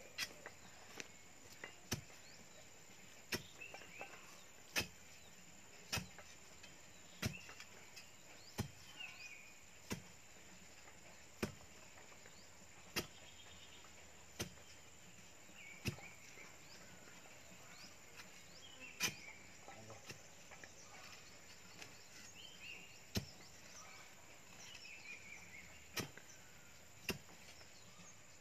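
Metal digging bar struck repeatedly down into the soil of a fence-post hole, one sharp strike about every one and a half seconds. Birds chirp faintly in the background.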